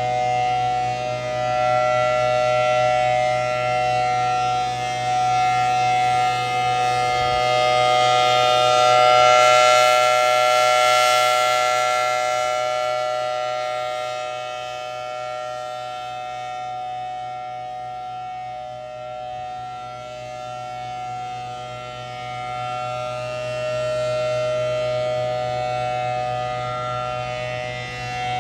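Federal Signal Thunderbolt 1000T rotating outdoor warning siren sounding a steady Alert tone at one unchanging pitch. Its loudness swells and fades slowly as the rotating horn sweeps toward and away, loudest about a third of the way in and rising again near the end.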